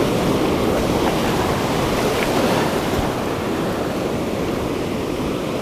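Ocean surf: waves breaking and foamy wash rushing over the sand, a steady, even rush.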